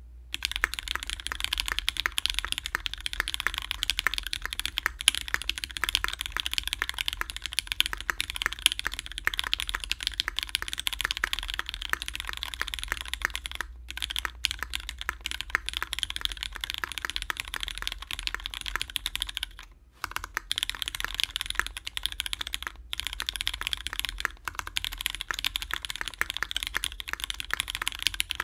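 Continuous typing on a Duck Orion V2.5 mechanical keyboard with Cherry Hyperglide MX Black linear switches on an aluminum plate and GMK ABS keycaps, a dense run of keystroke clacks broken by a few brief pauses.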